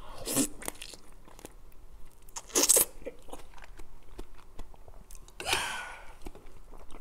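Close-up eating of soy-sauce-marinated raw blue crab (ganjang gejang): biting into the crab and chewing, with sharp crunching sounds. The loudest crunch comes about two and a half seconds in.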